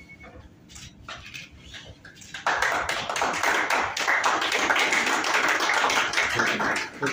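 A group of people applauding. It starts as a few scattered claps and breaks into dense, steady clapping about two and a half seconds in, which then tails off near the end.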